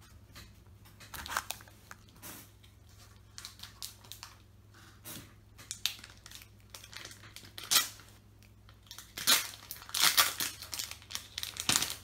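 A Naruto trading card booster pack's wrapper being torn open and crinkled, in irregular rustling bursts that are loudest in the last few seconds.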